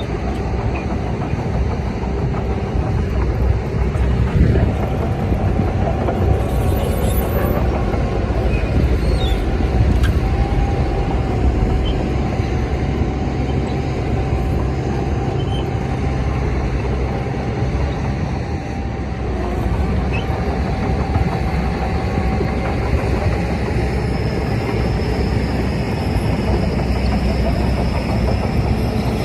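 Crawler bulldozer working: its diesel engine runs steadily under load, with a dense clatter and a steady high whine running through it that breaks off briefly about two-thirds of the way in.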